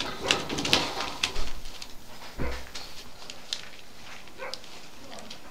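Young puppies playing: scuffling and rustling on fleece bedding and toys, with a short falling whimper a little over halfway through the first half and a couple of faint whines near the end.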